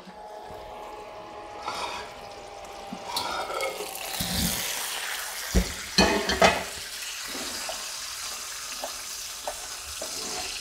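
A whole roast chicken sizzling in its hot pan as it is taken out of the oven, the hiss growing louder about four seconds in, with a few sharp metal clanks of the pan and oven rack around six seconds in.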